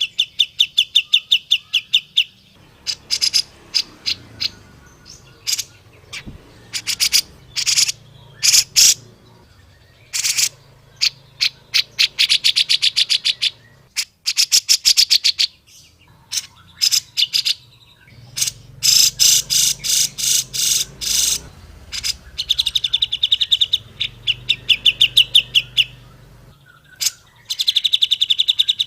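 Cucak jenggot (grey-cheeked bulbul) calling in repeated bursts of rapid, rattling chatter, each a fast string of sharp clicky notes lasting about one to three seconds with short pauses between.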